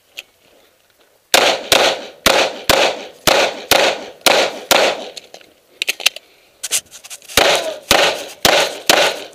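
Open-division competition pistol with a red-dot sight firing rapid shots, mostly in quick pairs, starting about a second and a half in. There is a brief lull with faint clicks in the middle, then more fast pairs.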